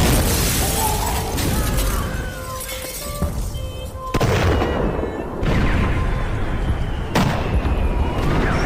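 Dramatic theatre score built from sound effects: four sudden crashes, one at the start and three more about four, five and a half and seven seconds in. Each trails into a rumbling wash, with faint thin tones sliding beneath.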